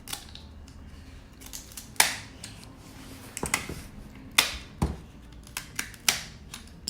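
Scissors cutting through the spiny shell of a steamed king crab leg: a series of sharp snaps, about half a dozen loud ones at irregular intervals with a few fainter ones between.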